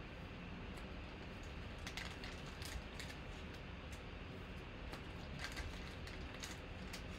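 2020 Panini Chronicles basketball cards being handled and flipped through by hand: scattered light clicks and snaps of card stock, over a low steady background hum.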